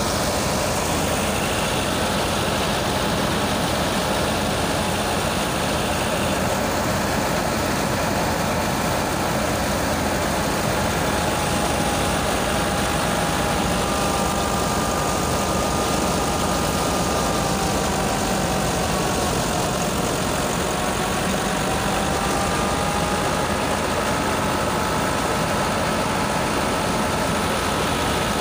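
Tractor-driven threshing machine running steadily under load as sheaves are fed in: the diesel engine and the thresher make one continuous mechanical din, with a faint high whine that drifts slightly in pitch.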